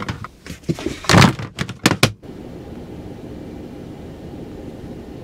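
A quick run of knocks and thumps, five or so in the first two seconds, then a steady low background hum.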